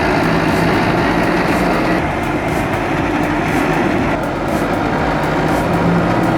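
Heavy machinery engine running steadily under load with mechanical clatter, changing abruptly about two and four seconds in.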